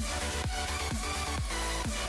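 Background electronic dance music with a steady kick drum about twice a second over a held bass line.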